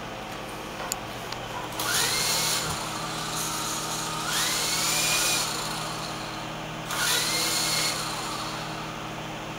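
Small electric motor spinning up in three short bursts of about a second each, its whine rising in pitch each time before cutting off.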